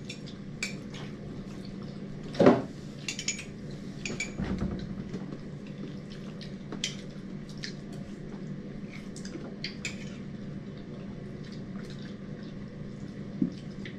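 Scattered light clinks and taps of spoons and hands on plates and ceramic mugs during a meal, with one louder knock about two and a half seconds in, over a steady low hum.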